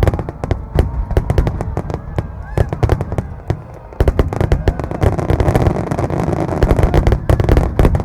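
Aerial fireworks shells bursting in a rapid run of overlapping sharp bangs over a low rumble of booms. The barrage turns denser and nearly continuous about halfway through.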